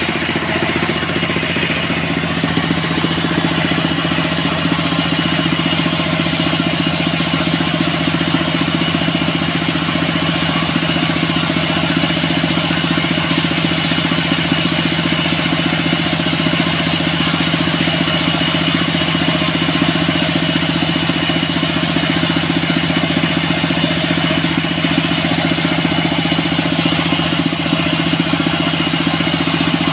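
Engine of a cart-mounted portable sawmill running steadily at an unchanging speed with no cutting load, a constant droning hum.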